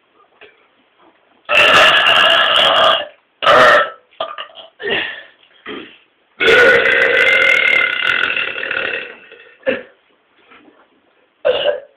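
Men's loud, deliberate burps. There is a long one, then a short one, a few small ones, and then a longer burp of about three seconds.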